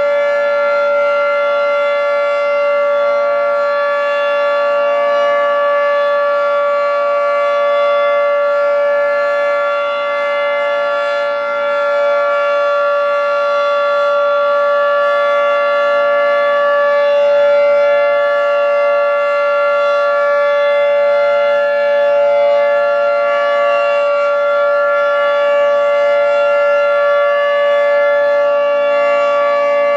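Federal Signal 2T22 dual-tone outdoor warning siren sounding its steady alert signal: a loud, held chord that does not change in pitch.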